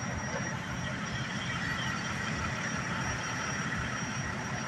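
Steady low rumble of an idling vehicle engine under street noise, with a thin high whine.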